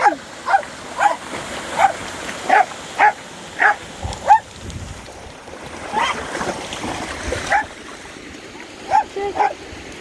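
A dog barking repeatedly in short, high-pitched barks, about one or two a second with a pause midway, over the steady rush of a small waterfall.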